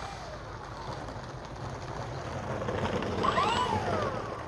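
Twin electric motors and propellers of an Avios King Twin 1700 RC model plane taxiing. Their whine rises and falls in pitch and is loudest near the end, as the plane comes close.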